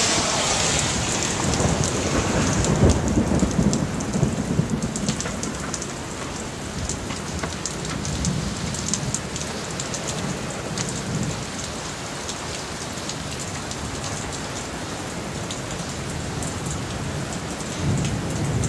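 Heavy rain pouring down steadily, with low rumbles rising and falling now and then. It is loudest in the first few seconds.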